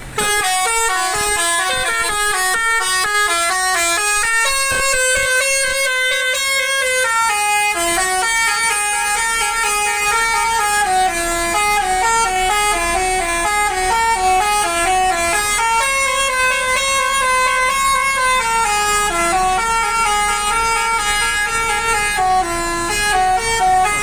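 Basuri telolet musical air horn on a Sudiro Tungga Jaya tour bus playing a long, loud tune of quick stepped notes, several tones sounding together.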